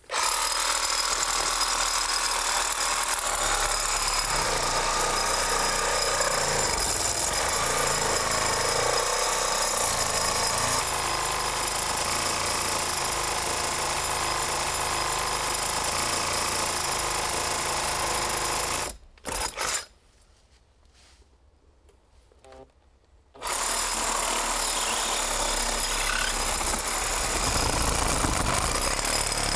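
Reciprocating saw cutting through a rotted wooden fence post, running steadily for about nineteen seconds. It stops with a couple of brief blips, and after a few seconds of near silence starts again for the second cut, one on each side of the fence rail.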